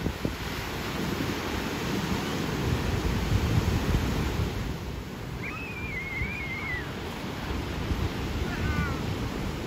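Ocean surf breaking, with wind buffeting the microphone and adding a low rumble. A faint high warbling call comes about five and a half seconds in, and a few short chirps come near the end.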